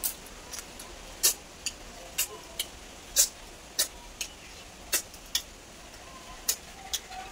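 Sharp, irregular clicks and smacks, one or two a second, of someone eating cooked river snails with rice by hand from a steel plate.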